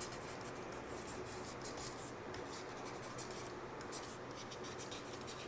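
Faint scratching of a stylus handwriting on a tablet surface, over a steady low background hiss.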